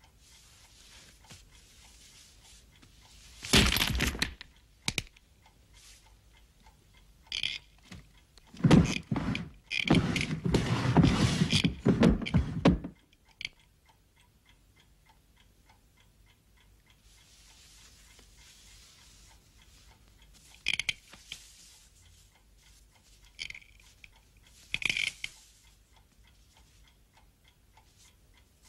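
Sparse film sound effects: a few separate thuds and scrapes, with a longer busy stretch of scraping and clattering a little before the middle, and quiet in between.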